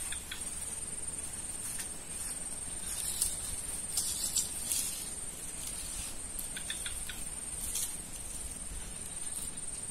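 Insects trilling steadily at a high pitch, with a few brief faint ticks and rustles partway through.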